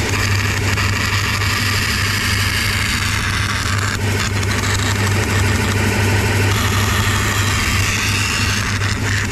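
Belt sander running steadily with a low motor hum, as the corner of an aluminium plate is ground against the sanding belt to round it off.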